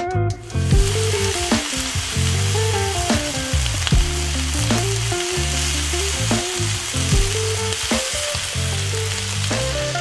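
Cubed beef steak bites searing in a hot cast iron skillet: loud, steady sizzling that starts suddenly just after the start, with tongs turning and moving the pieces in the pan.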